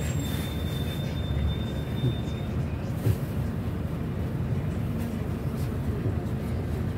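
Inside a GAZelle minibus, the engine and road make a steady low rumble. A thin high tone lasts about two seconds near the start, and there are a couple of short knocks, the sharpest about three seconds in.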